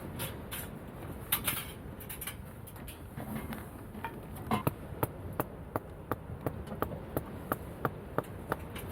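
A series of short, sharp knocks, a few scattered at first, then about three a second in a steady rhythm from about halfway through.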